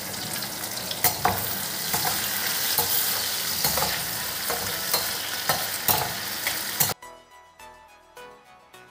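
Sliced onions sizzling in hot oil in a non-stick frying pan, stirred with a spatula that taps and scrapes the pan now and then. About seven seconds in the sizzling cuts off abruptly and faint background music follows.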